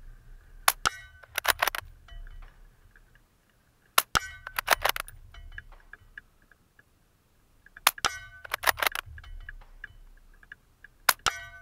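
Suppressed Ruger Precision Rifle firing four shots in steady rapid fire, about one every four seconds. Each shot is followed by a quick run of metallic clicks as the bolt is worked to chamber the next round.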